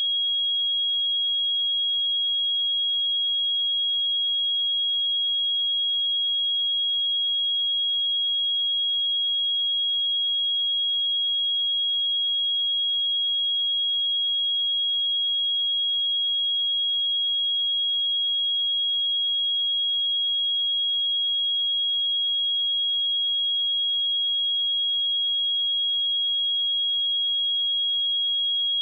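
A steady, unbroken 3297 Hz sine-wave test tone: a single high pitch at constant level, with no other sound.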